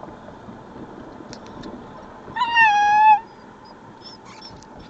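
Eight-week-old Alaskan malamute puppy giving one high whining cry, under a second long, about two and a half seconds in; its pitch dips slightly at the start and then holds steady. A low steady car noise runs underneath.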